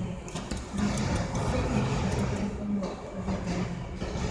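Batting centre ambience: a steady low machinery hum with scattered faint clicks, and voices in the background.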